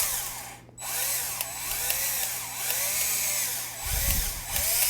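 Power drill with a 3.5 mm bit boring into an iPhone 7's aluminium body and internals. The motor whine rises and falls in pitch over a harsh grinding hiss, with a brief stop just under a second in. It sounds really bad.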